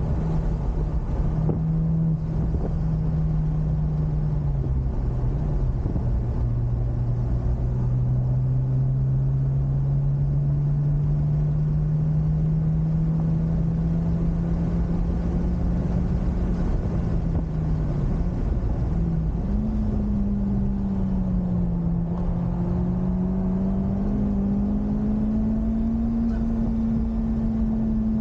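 Honda Civic Type R FK8's turbocharged 2.0-litre four-cylinder engine running under way at speed. Its pitch drops a few seconds in, climbs slowly and steadily for about ten seconds, dips briefly, then rises again. Steady road and tyre rumble runs underneath.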